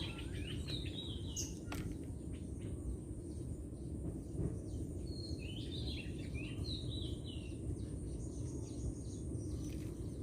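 Birds chirping in short, falling calls, one cluster near the start and another a little past the middle, over a steady low background noise.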